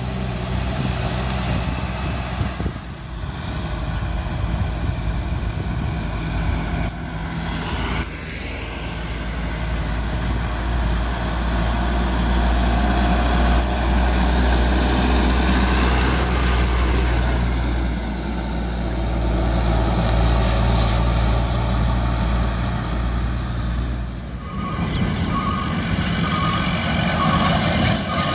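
Diesel dump-truck engines running on the road, with a Mitsubishi Canter HD 125 PS truck's engine loud and steady through the middle. Near the end, a truck's reversing alarm starts, giving even, repeated beeps.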